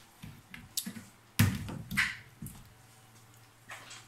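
Wooden honey frames knocking and clicking against a stainless steel uncapping tray as they are handled and lifted out, with the loudest knock about a second and a half in and a few lighter clicks around it.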